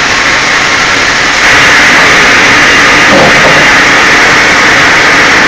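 Log-carriage band sawmill running: the band saw makes a loud, steady, dense mechanical noise that turns louder and harsher about a second and a half in as the carriage carries the timber through the blade.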